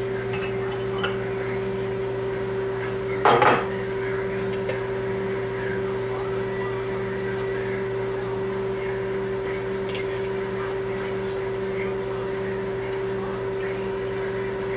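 A brief clatter of dishes and cutlery about three and a half seconds in, over a steady electrical hum with a clear held tone.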